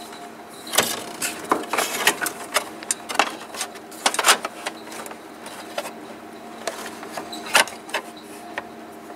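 Irregular clicks and knocks of hand tools and metal fittings being handled, over a steady hum.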